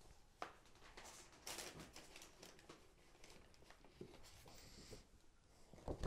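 Quiet handling sounds: faint paper rustles and light taps as leaflets are handled on a table, with a louder knock near the end.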